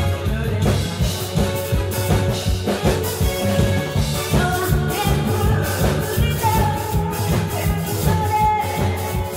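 A woman singing through a microphone and PA over amplified backing music with a steady drum beat, holding a couple of long notes in the second half.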